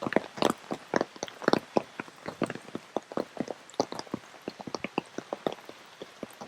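Rain drops falling onto rain gear, making a dense, irregular patter of sharp taps, several a second.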